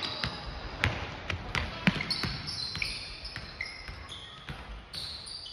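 Basketball bouncing on a gym court during play: a string of sharp, irregular knocks, the loudest between one and two and a half seconds in, over voices.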